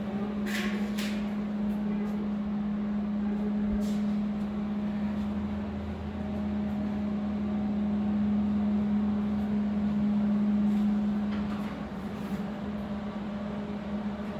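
A steady mechanical hum holding one low pitch, with a deeper hum joining about five seconds in, and a few light clicks and knocks near the start and near the end.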